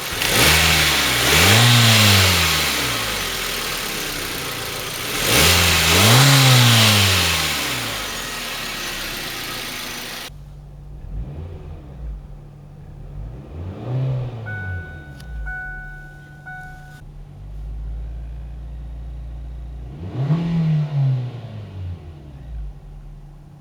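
2006 Kia Spectra's 2.0-litre Beta II four-cylinder engine on its stock exhaust manifold and downpipe, revved twice from idle, each rev climbing and falling back. After a sudden change in the sound about ten seconds in, it idles with two lighter blips of the throttle.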